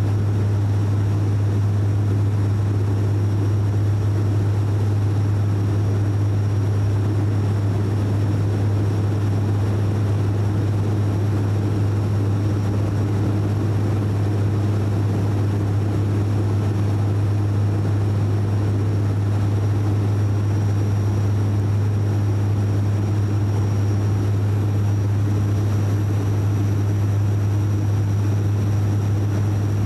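Cabin sound of a De Havilland Canada Dash 8 Q400 turboprop on approach: its propellers make a steady, loud low drone under a constant rush of engine and air noise, with a faint high whine above it.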